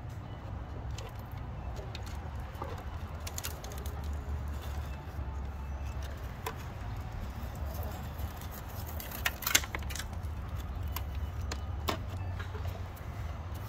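Scattered small metallic clicks and scrapes from a hand tool working the rusted screws of a bus light housing, with a couple of sharper clicks about nine seconds in, over a steady low rumble.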